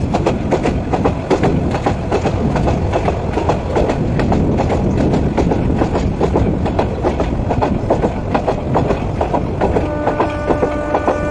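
Local passenger train running along the track, heard from a moving coach: a steady rumble with rapid clickety-clack of the wheels over the rails. A steady tone with several pitches joins about ten seconds in.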